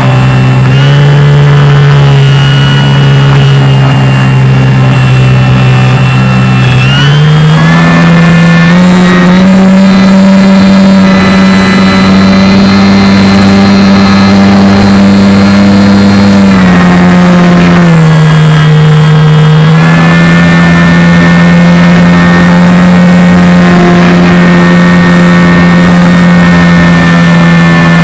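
Electric motor and propeller of a Tundra V2 RC floatplane, heard from its onboard camera: a loud, steady whine. The pitch steps up a little at the start, climbs again about a quarter of the way in as the throttle is opened, drops a little past halfway and rises again soon after.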